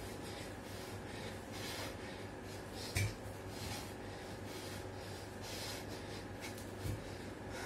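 A man breathing hard in rhythmic, airy surges, about one a second, while doing push-ups, with a sharp knock about three seconds in and a softer one near the end, over a steady low hum.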